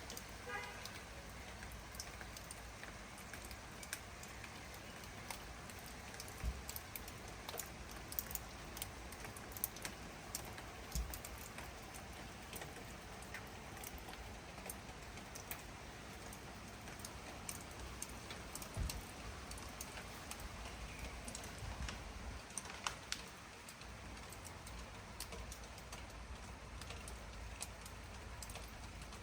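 Steady rain falling, with many individual drops tapping sharply and irregularly close by.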